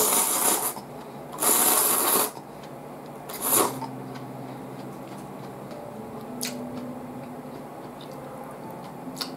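Someone slurping chilled instant ramen noodles three times, loud and hissy, the third slurp short. Faint background music with held notes carries on underneath.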